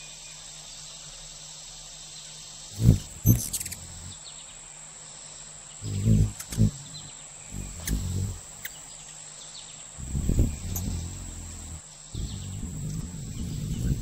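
Hummingbird wings humming in short low bursts, several times, as it hovers at a feeder, over a steady high-pitched insect trill.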